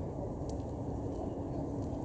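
Steady low outdoor background rumble with a faint hum, and a small click about half a second in.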